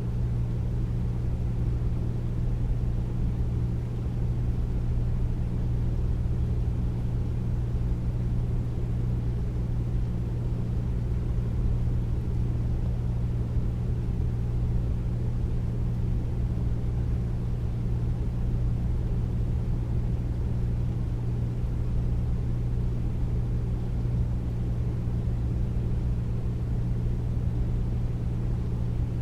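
Air conditioner running steadily: a deep, even whooshing noise with a low hum underneath.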